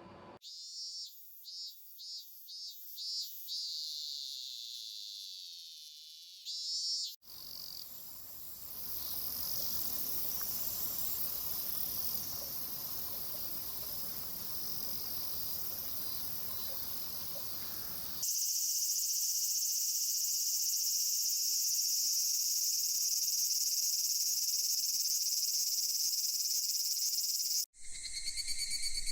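Recorded sound effects of chirping insects, crickets among them, in several pieces spliced together: a run of short high chirps, then a fuller stretch with noise down into the low range, then a steady high-pitched chorus, each change cutting in abruptly.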